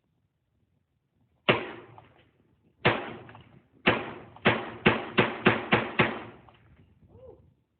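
Rifle firing .300 Blackout rounds: nine sharp shots, each with a short ringing tail. The first two are single shots about a second and a half apart, then seven come quickly, about three a second.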